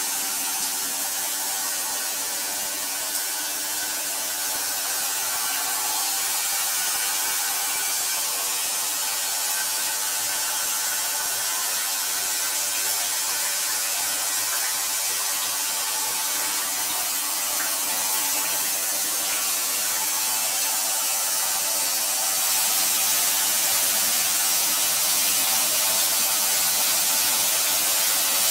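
Shower running: a steady hiss of water spraying down in a tiled shower, getting a little louder about two-thirds of the way through.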